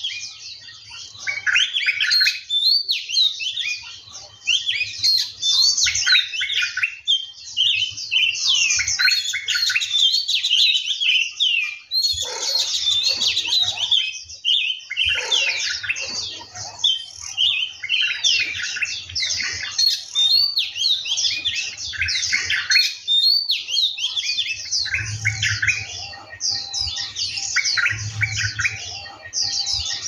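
Several birds chirping and whistling at once in a dense chorus of quick, high, overlapping notes and short gliding calls, with hardly a pause.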